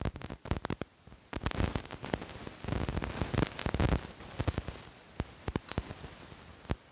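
Close-miked eating sounds of a fish curry meal: chewing with many short wet clicks, busiest and loudest between about one and a half and four and a half seconds in, over crackly static from a loose microphone.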